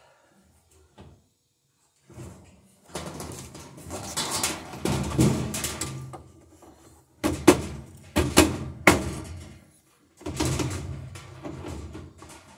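Scraping and rumbling as a washing machine's metal cabinet is shifted and handled, then several sharp knocks a little past the middle.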